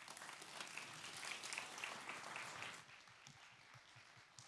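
Audience applauding at the end of a talk, swelling quickly and then dying away to a few scattered claps about three seconds in.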